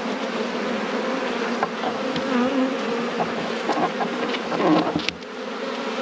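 Honeybees buzzing steadily around an opened nuc hive as a bee-covered frame is lifted out for inspection. A single sharp click about five seconds in.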